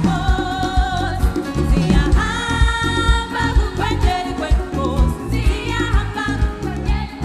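A group of children singing together on stage, over a steady low beat.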